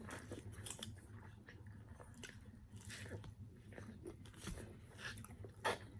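Faint close-up eating: chewing and biting into pizza and french fries, heard as scattered small mouth and food clicks over a low steady room hum.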